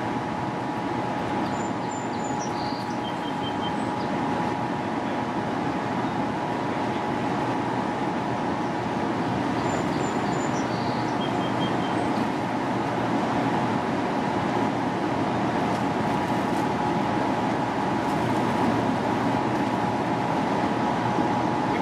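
Steady rush of fast river current pouring out below a dam, with a faint steady hum in it.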